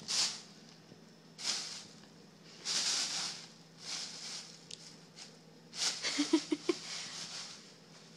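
Thin plastic shopping bag crinkling and rustling in several short bursts as a cat paws, bites and rolls on it, with a few quick light taps in the busiest burst near the end.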